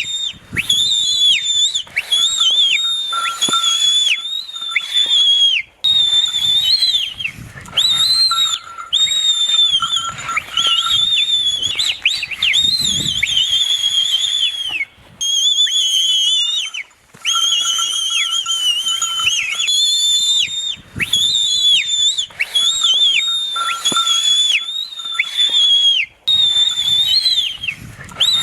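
Loud, shrill whistling, blown over and over to rile a Jallikattu bull into bucking and 'dancing': repeated blasts a second or two long with short breaks, each held on a high note with sharp dips and swoops in pitch.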